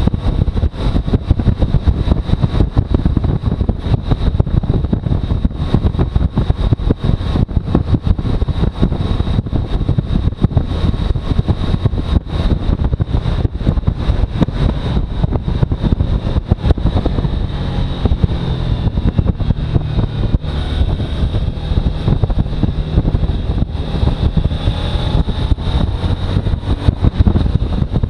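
Suzuki V-Strom motorcycle engine running with a dense, rapid low pulsing and some wind noise on the microphone; past the middle the engine pitch rises and falls a few times.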